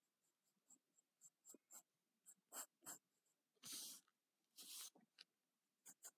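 Faint scratching of a graphite pencil on paper while sketching: a run of short strokes, with two longer strokes a little past halfway.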